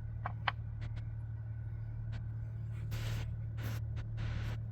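Three short blasts of compressed air from an air blow gun, cleaning water and dirt out of the spark plug wells, a few seconds in. They follow a few light clicks near the start, over a steady low hum.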